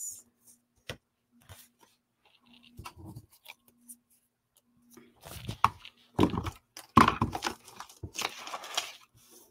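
Paper scraps rustling and crinkling as a hand sorts through a pile of cut cardstock banner pieces, with scattered light taps at first and several louder rustles in the second half.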